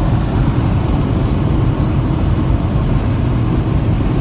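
Steady road and engine noise inside a moving car's cabin at highway speed, a constant low rumble.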